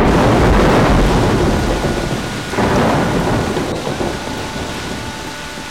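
Heavy rain with rolling thunder. The rumble swells again about two and a half seconds in, then slowly dies away.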